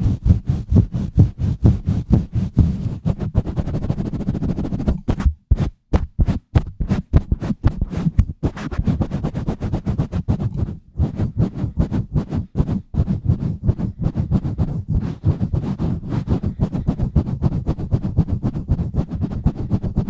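Fingers rapidly squeezing and rubbing a foam windscreen on a microphone (ASMR mic pumping): a fast run of deep, rushing strokes about five a second, broken by brief pauses about five seconds in and again near eleven seconds.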